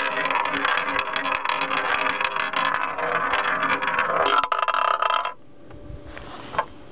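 Ball rolling around the track of a tabletop roulette wheel while the wheel spins: a steady rolling rattle with fine clicks, a sharp click about four and a half seconds in, then the sound stops about five seconds in as the ball settles into a pocket.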